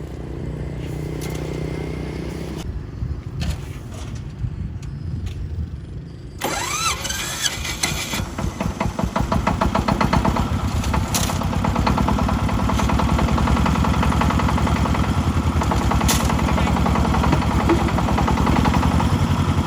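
Single-cylinder diesel engine of a công nông tractor-truck starting about six seconds in, then running with a rapid, even chugging that grows louder. A few knocks come before it starts.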